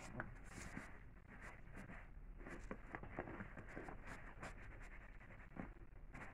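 Faint scratching, rustling and chewing as a puppy bites and tugs at a rope toy on a padded fabric bed, with many small irregular clicks.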